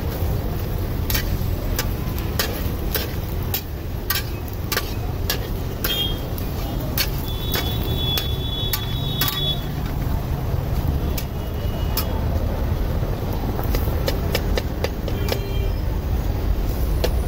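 A metal spatula and knife click and scrape against an aluminium frying pan as a bread omelette is turned and pressed in ghee, over a steady low rumble of road traffic.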